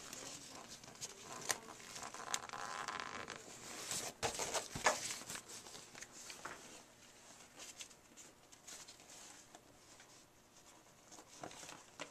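Fabric of the softbox's inside diffuser rustling, with scattered small clicks and ticks, as its hooks are fitted over the straps inside the softbox. The handling is busiest in the first few seconds and then quietens.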